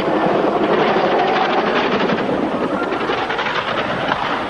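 Helicopter running at close range, its rotor and engine making a steady, dense chopping noise while it hovers with a load on a lifting cable.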